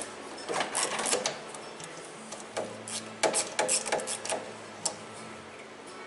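Ratchet wrench clicking in short runs of quick clicks, with metal clinks of the socket and extension, as a spark plug is backed out of the engine.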